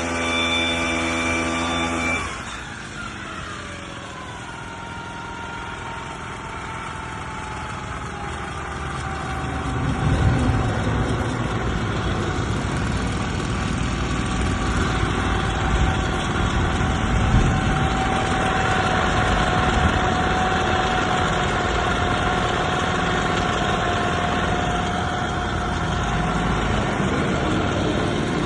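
Echo 315 backpack brush cutter's two-stroke engine running at high revs, then dropping in speed about two seconds in as the throttle comes off, its pitch sliding down over several seconds. It then runs steadily, growing louder from about ten seconds in.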